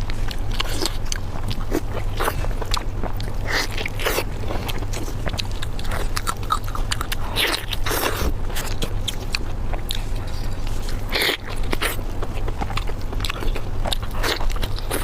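Close-miked eating: biting and chewing food, with many irregular sharp clicks and smacks, over a steady low hum.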